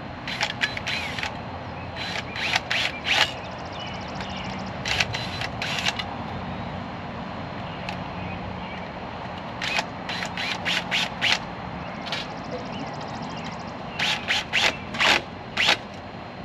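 Sharp clicks and light knocks in quick clusters, several times, over a steady low background hum.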